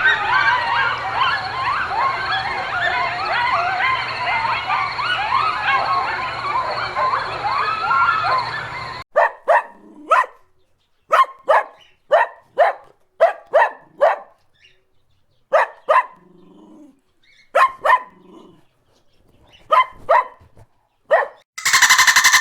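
A dense chorus of many high, overlapping chirping calls, cut off abruptly about nine seconds in. A dog then barks repeatedly in short, sharp barks with pauses between them, and a different, noisier sound begins just before the end.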